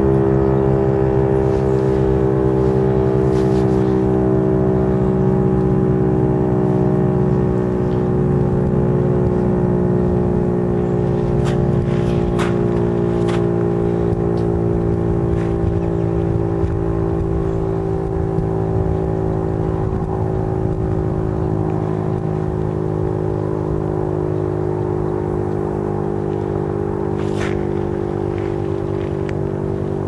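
Federal Signal STH-10 dual-tone electromechanical tornado siren sounding a continuous chord. Its pitch and loudness sink slowly as the rotor winds down.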